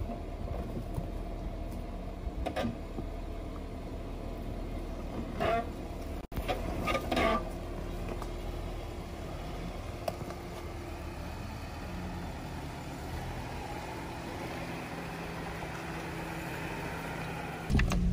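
Jeep Wrangler JK's engine running steadily at low revs as it crawls up a steep dirt climb in four-wheel-drive low, with a few short louder sounds in the first seven seconds. Near the end it jumps to a louder, closer engine sound heard from the cab.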